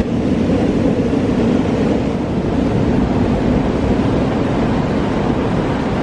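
Steady rushing noise of small ocean waves breaking on the beach, with wind on the microphone.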